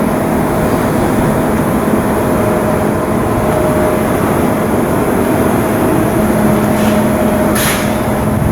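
Loud, steady drone of shipyard machinery with a constant hum, and a brief hiss about a second before the end.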